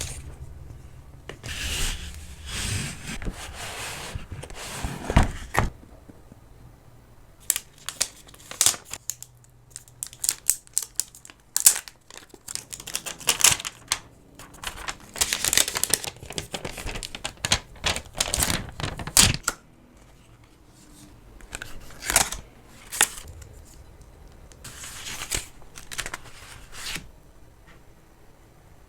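Smartphone packaging being handled and opened: tearing and crinkling of wrap and paper, with many sharp clicks and taps of the box and phone. It thins out to a few taps near the end.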